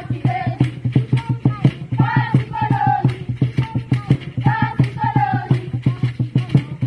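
Group of voices singing short repeated phrases over a quick, steady percussive beat, the music for a traditional children's dance.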